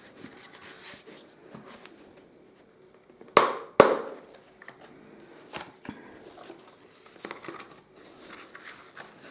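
A pistol's box or case being opened and handled: two sharp clicks about three and a half seconds in, with lighter knocks and rustling around them.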